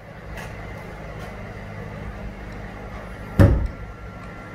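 An oak log set down with one heavy thump about three and a half seconds in, over a steady low mechanical hum.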